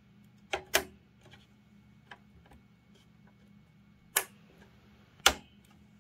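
Push-pin fasteners of a stock Intel CPU cooler snapping into the motherboard's mounting holes as the cooler is pressed down: four sharp plastic clicks, two in quick succession under a second in, then one after about four seconds and another about a second later.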